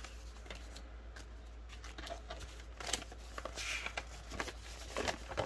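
Paper and plastic rustling as a savings-challenge sheet and binder sleeves are handled, with a few brief crinkles about three seconds in and near the end.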